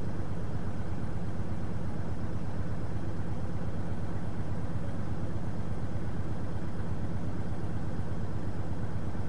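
A vehicle engine idling: a steady, unchanging low rumble with an even pulsing.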